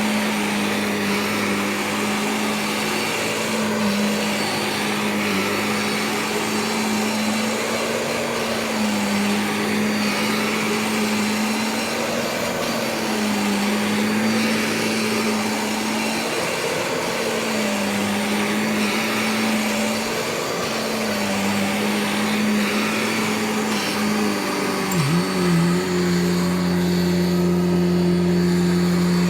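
Vacuum cleaner motor running, its pitch dipping slightly every few seconds. About 25 seconds in the pitch briefly drops, then holds at a steadier, slightly louder tone.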